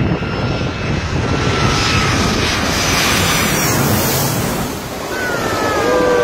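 Large jet airliner passing low overhead on landing approach: a loud rushing noise with the engines' whine slowly falling in pitch as it goes over, heaviest about three to four seconds in, over wind and surf. A man lets out a falling whoop near the end.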